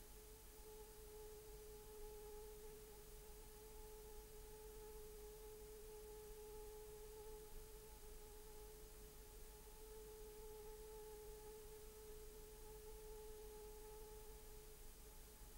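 Near silence with a faint, steady electronic tone and a low hiss, unchanging throughout.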